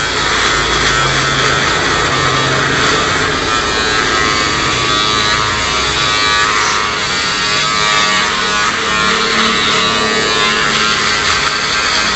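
Electric foil shaver buzzing steadily as it is run over the skin of a short faded haircut, smoothing out the fade.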